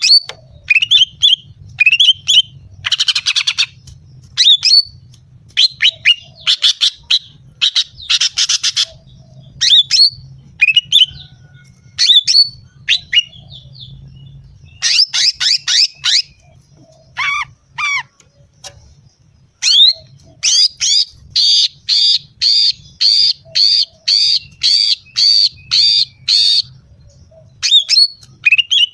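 Female green leafbird (cucak ijo) calling: a string of sharp, sweeping squawks and chirps with two raspy buzzing bursts, then a steady run of about a dozen repeated notes at roughly two a second near the end, the call used to lure and provoke males.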